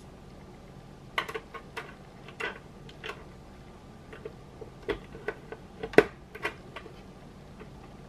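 Hard plastic LEGO Technic pieces being handled and pushed together: an irregular scatter of sharp clicks and taps, the loudest about six seconds in.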